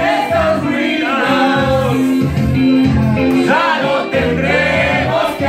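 Several people singing together into microphones, amplified, over instrumental music.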